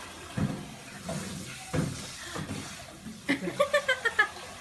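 A couple of short breathy sounds, then a burst of laughter in quick pulses about three seconds in.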